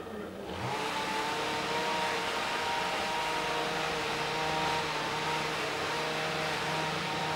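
A steady mechanical hum from a running motor, with a rushing noise and several held tones. It sets in about half a second in.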